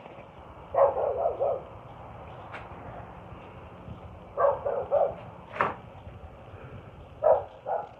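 A dog barking in short runs of quick yaps, three times, with a sharp click between the second and third runs.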